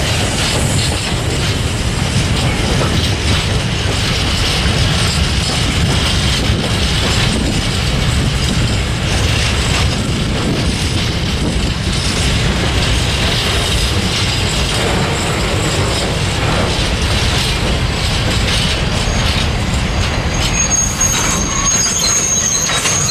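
A long freight train of open-top gondola wagons rolling past close by, with a steady heavy rumble and clatter of wheels on rail. A thin high-pitched wheel squeal joins near the end.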